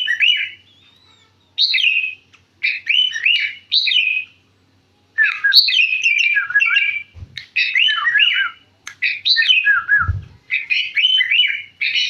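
Sooty-headed bulbul (kutilang) singing in full song: quick runs of short, bubbly, whistled phrases. A few separate bursts with gaps come first, and the song runs almost without a break from about five seconds on.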